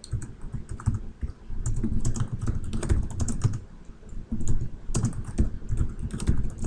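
Typing on a computer keyboard: bursts of quick keystrokes entering short commands, with a brief pause a little past the middle.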